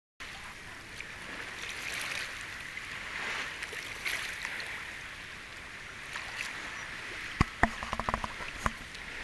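Lake water sloshing and lapping as dogs swim and a person wades. Near the end there is a quick cluster of sharp clicks and knocks.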